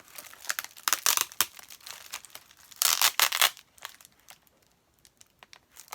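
Packaging material crinkling as it is handled and searched through by hand, in two main bursts: about a second in and around three seconds in.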